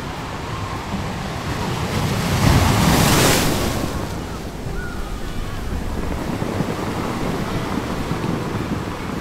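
Ocean surf: waves breaking and washing up the sand, with wind buffeting the microphone. A louder rush of surf swells about three seconds in, then settles back.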